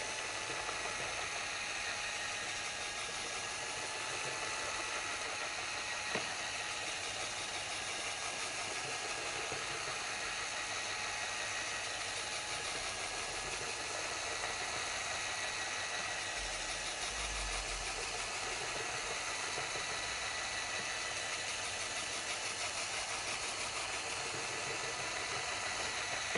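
Handheld drill turning a paddle mixer at a slow, steady speed in a bucket of thinned water-based epoxy primer, a steady motor hum with the churn of the paddle. One short click about six seconds in.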